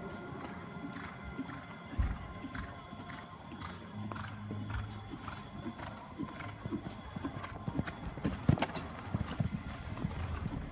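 A horse's hoofbeats on a sand arena as it canters, a regular beat of about two a second, with one louder knock late on.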